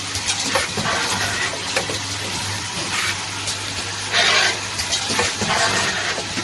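Automatic membrane valve cap welding machine running: a steady hum under a busy run of mechanical clicks and knocks from its moving parts, with short louder hisses, twice near the middle.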